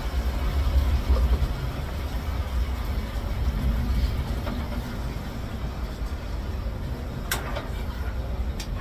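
Pork stomach and intestines sizzling in hot oil as they are stir-fried in a pan, over a steady low rumble. Chopsticks click against the pan twice near the end.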